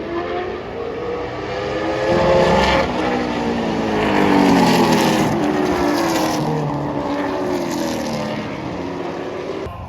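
Vintage race cars running at speed past trackside, several engine notes climbing and dropping in pitch as the cars go by, loudest about halfway through.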